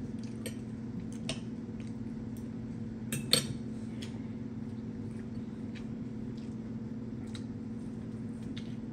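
A metal fork clinking against a plate a few times, the loudest clink about three seconds in, over a steady low hum.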